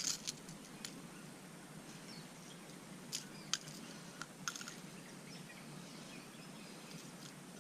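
Faint, even background noise with a handful of short, sharp light clicks scattered through it, two of them clearer about three seconds in.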